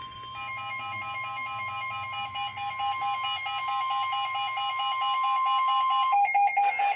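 Weather-radio alert: the steady 1050 Hz NOAA Weather Radio warning alarm tone, with a rapid, even electronic beeping alarm over it from about half a second in. The steady tone cuts off about six seconds in while the beeping goes on. It signals the start of a new severe thunderstorm warning broadcast.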